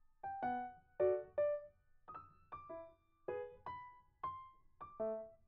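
Background music: a slow piano melody of single notes, about two a second, each ringing out and fading.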